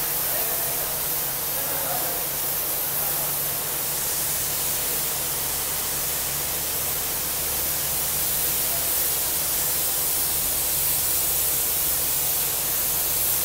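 Steady rushing hiss of compressed air and water blasting up a borewell casing during air-compressor bore cleaning, over a low steady hum from the compressor.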